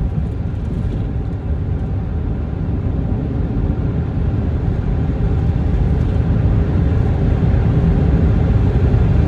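Steady low road and engine rumble inside a moving vehicle's cabin, getting slightly louder near the end.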